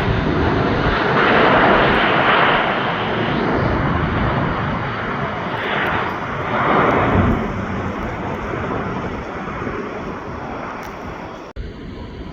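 Jet airliner noise, loud for the first seven seconds or so and then gradually fading. It drops away abruptly just before the end.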